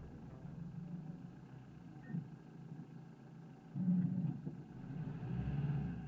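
Car rolling slowly along a dirt road, heard from inside: a quiet, low engine and tyre rumble that swells briefly about four seconds in and again near the end.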